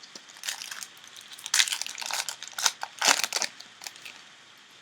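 Foil wrapper of a Panini Rookies & Stars football card pack being torn open and crinkled by hand, in a string of sharp crackles over about three seconds.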